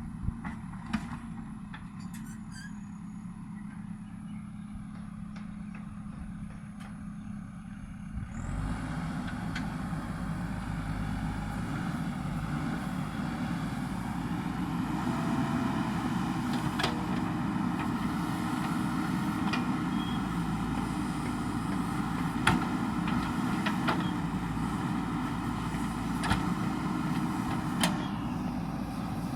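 JCB backhoe loader's diesel engine running steadily, then revving up to a louder, higher run about eight seconds in, with occasional sharp knocks.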